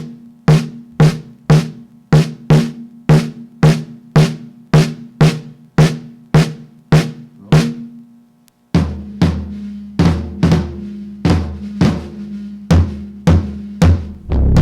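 Drum kit playing a steady beat of single strokes, about two a second, each with a low ringing tone. About nine seconds in, a low held note joins beneath the drums.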